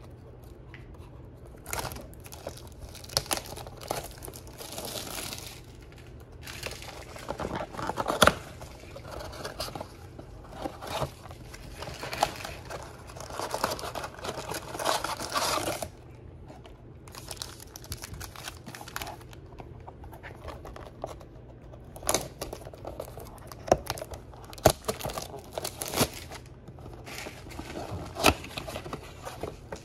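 Cardboard trading-card blaster box being handled and torn open: irregular crinkling, rustling and tearing of cardboard, with a few sharp snaps as flaps pull loose.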